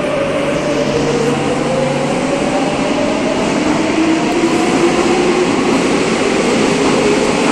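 Madrid Metro 7000-series train moving along the platform and accelerating, its traction motors whining slowly up in pitch over a steady rumble of wheels on rail.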